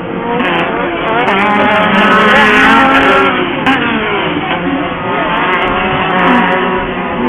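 Several off-road racing buggy engines revving at once, their pitches rising and falling as they accelerate and lift off, loudest about two to three seconds in.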